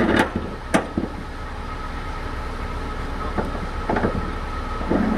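Sharp metallic knocks and clicks from tie-down strap hardware at a flatbed trailer's side rail: two in the first second, then a few more near the end. Under them runs a steady low hum.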